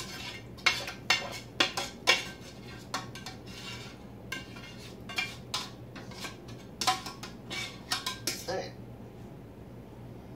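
A kitchen utensil scraping and clinking against the inside of a metal pan, scraping out the last of a thick cheese sauce: a run of quick, irregular scrapes and taps that stops near the end.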